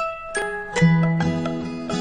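Background music: plucked and chiming notes with a steady bass line.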